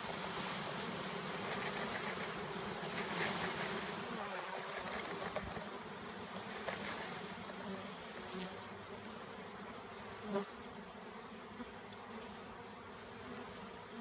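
A mass of honey bees buzzing, freshly shaken from a package into a Langstroth hive body and stirred up. The hum is fullest for the first few seconds, then settles a little lower.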